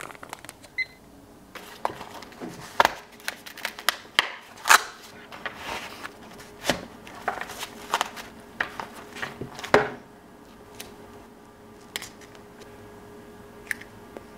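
Irregular handling noises: sharp clicks, taps and plastic rustles as a bag of plastic probe caps, a nylon holster and the plastic tester are handled. They are densest over the first ten seconds, then thin out to a few clicks over a faint steady tone.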